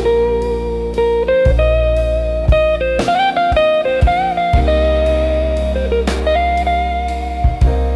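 Slow blues ballad instrumental break: a guitar plays a lead line of held notes, some bent in pitch, over bass and a slow drum beat.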